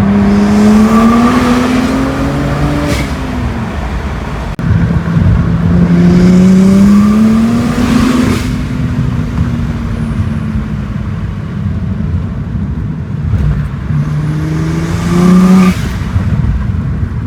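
BMW N54 twin-turbo straight-six accelerating hard three times, its engine note rising in pitch through each run; each run ends with a short burst of hiss.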